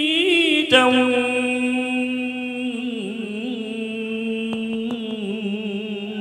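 Male cải lương singer holding one long drawn-out note with vibrato, stepping down a little in pitch about halfway through.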